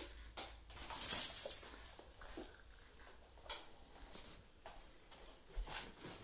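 Vizsla moving about and nosing at its dog bed on a hardwood floor: scattered light clicks and rustles, with a brief loud jangly rattle about a second in.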